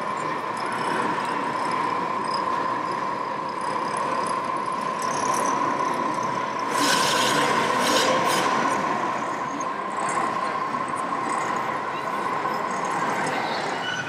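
Steady high whine of a radio-controlled model construction machine's electric drive, which stops near the end, over the din of a busy exhibition hall. A short burst of hiss comes about halfway through.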